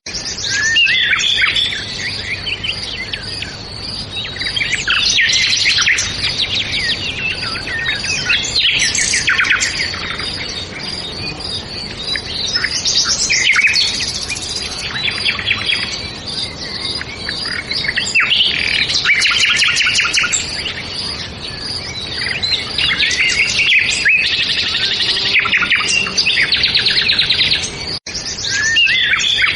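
A chorus of songbirds chirping and singing at once in rapid, overlapping trills and twittering phrases, swelling and easing every few seconds. A sudden, very brief dropout near the end.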